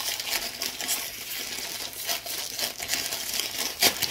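Plastic food packaging crinkling and rustling as it is handled, with a sharp click near the end.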